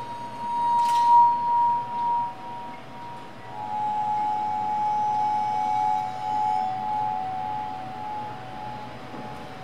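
Sustained ringing tones with a glassy quality: one high tone held for about two seconds, then two slightly lower tones overlapping and wavering in loudness until near the end. A single sharp clink sounds about a second in.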